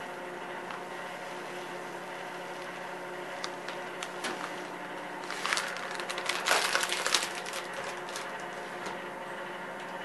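Dry rice grains poured from a bag into a porcelain cup: a dense, rattling patter of grains for about two seconds around the middle, with a few single ticks before it, over a steady background hum.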